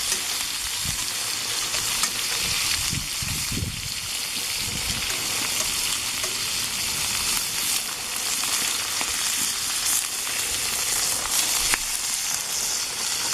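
Food frying in a greased pan over an open fire: a steady sizzle with occasional small crackles. There are a few low bumps in the first few seconds, and the sound cuts off suddenly at the end.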